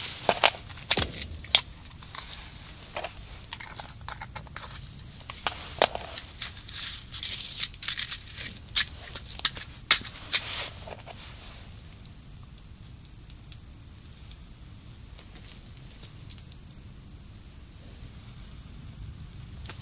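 Handling noise at a small stainless-steel tent stove being lit with dry fuel: sharp clicks, taps and rustles, thick for about the first ten seconds, then mostly quiet with a few faint clicks.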